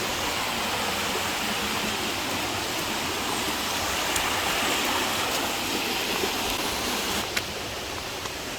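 Rushing water of a waterfall and river, a steady, even rush. There is a brief click about seven seconds in.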